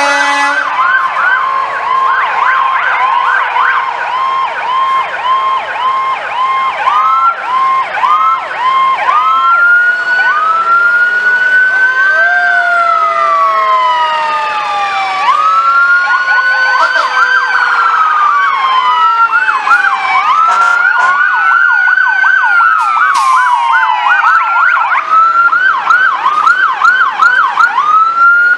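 Several emergency-vehicle sirens sounding at once, overlapping: quick repeating yelp tones over slower rising-and-falling wails, with a long, slowly falling tone beneath them.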